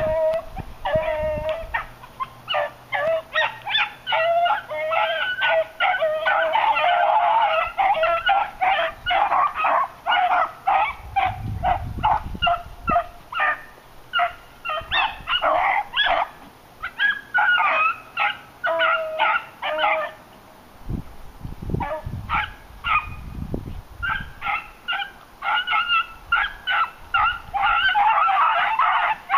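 Beagles giving tongue in a dense run of rapid, overlapping yelps and bays, the sound hounds make when running a rabbit's scent. The cry pauses about 20 seconds in, then picks up again.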